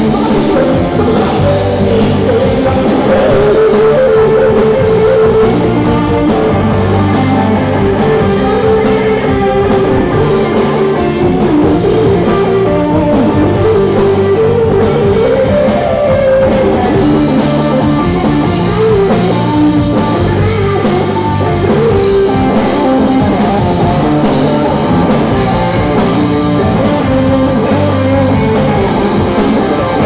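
A rock band playing live: a Les Paul-style electric guitar, bass guitar and drums, loud and continuous.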